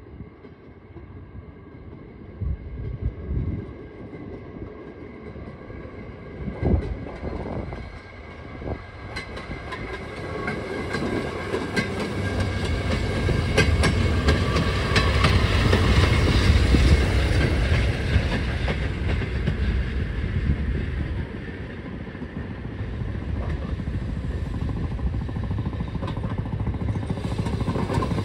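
Railroad speeders (small track motorcars) rolling along the rails, their small engines running and steel wheels clicking over the rail joints. It grows louder as the first car passes about halfway through, then a second car approaches near the end.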